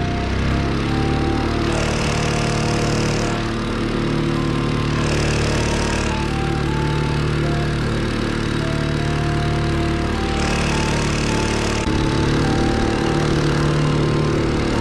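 Small 2-horsepower water-jet outboard motor (EXECT Poseidon ZXV4000) running steadily as it drives the boat along, its jet spraying out of a nozzle set above the water. About twelve seconds in the engine sound shifts and comes closer.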